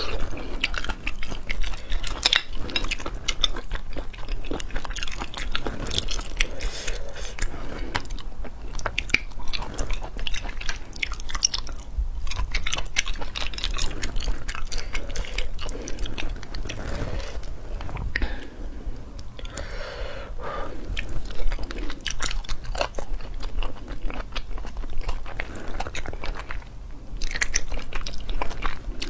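Close-miked chewing of sea snail meat, with many small wet clicks and smacks of the mouth coming irregularly throughout.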